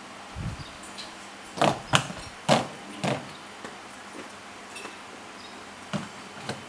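A few sharp knocks, four of them close together between about one and a half and three seconds in and two more near the end, from a baby knocking and bumping against a plastic toy bin while playing.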